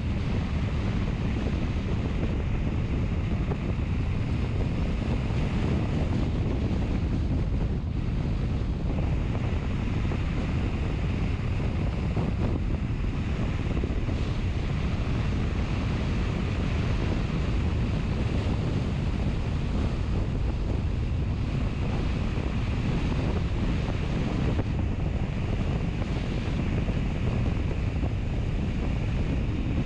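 Steady wind noise on the microphone: a constant low rumble with a fainter hiss above it, unbroken and even in level.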